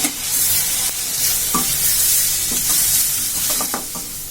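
Onions and tomatoes sizzling in hot oil in a kadai while a spoon stirs them, scraping and clicking against the pan now and then. The sizzle eases a little near the end.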